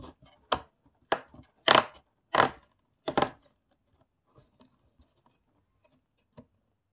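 Advent calendar packaging being torn open in about five short, sharp rips over three seconds, the loudest near the middle, followed by a few faint small clicks of plastic pieces.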